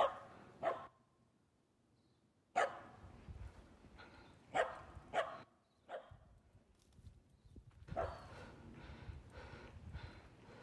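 A dog barking: about six short barks, some in quick pairs, with pauses of a second or two between them.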